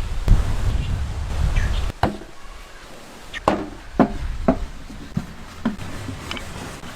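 Kitchen food-preparation sounds: a low rumble of handling for about two seconds, then a series of sharp, separate knocks and clinks of a utensil on a bowl or board.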